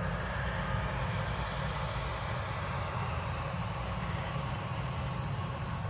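Freight train passing with a steady low rumble, a mid-train diesel locomotive (DPU helper) going by among the intermodal cars, heard from inside a car.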